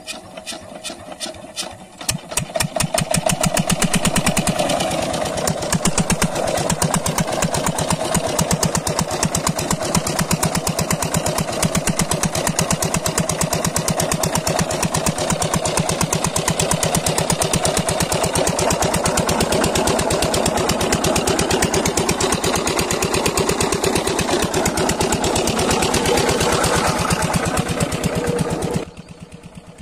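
Single-cylinder diesel engine of an irrigation water pump set being hand-cranked, catching about two seconds in and then running steadily with a fast, even beat. The sound cuts off suddenly near the end.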